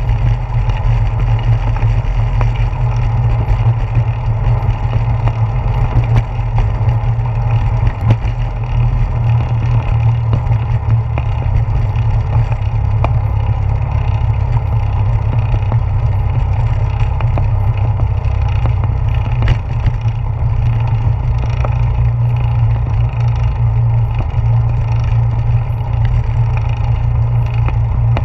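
Bicycle rolling fast along a wooden boardwalk, picked up by a handlebar-mounted GoPro Hero 4: a steady, loud, low rumble of tyres, handlebar vibration and wind, with a few faint ticks.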